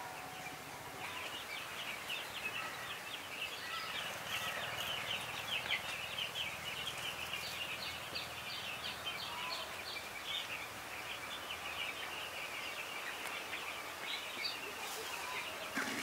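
A large flock of broiler chickens peeping and chirping all at once, a dense, continuous high chatter that swells in about a second in.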